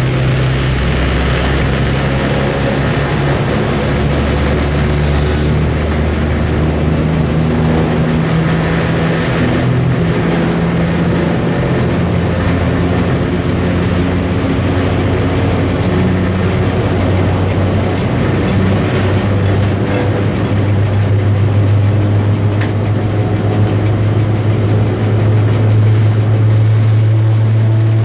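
Diesel engine of an M62Ko freight locomotive running under load, heard from the cab. Its deep steady note steps up in pitch twice, near the middle and again about two-thirds of the way in, and grows a little louder after the second step.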